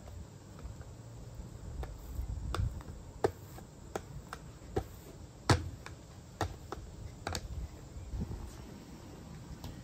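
Light, irregular taps and clicks of hands and a rolling pin working naan dough on an oiled mat, the sharpest click about five and a half seconds in.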